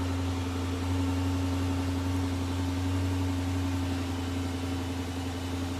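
Steady low machine hum: a constant deep drone with a higher steady tone over it and a light hiss beneath, unchanging throughout.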